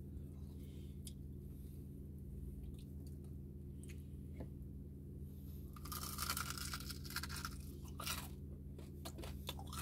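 Close-up biting and chewing of crispy pata, deep-fried pork leg with crisp skin, with scattered crackles and a burst of loud crunching about six seconds in and another about two seconds later.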